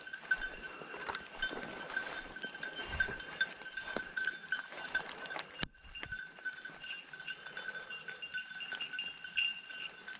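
A hunting dog's bell collar tinkling continuously as the dog ranges through the woods, with the hunter's footsteps rustling in dry leaves and a single sharp click a little past halfway.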